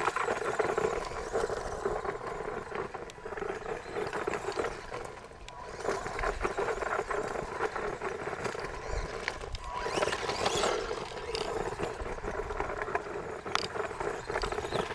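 A 1/16-scale electric remote-control truck being driven, its motor giving a steady whine that rises and falls, with a crackle of tyres and pebbles on loose rock. The motor eases off briefly about five seconds in and again around ten seconds.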